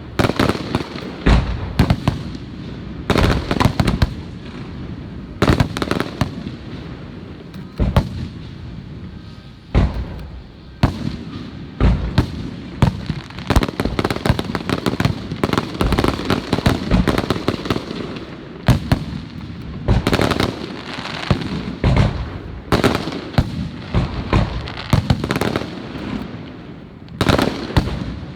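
Fireworks show: many shells bursting in quick succession, bangs and crackling that come in dense clusters with short lulls between.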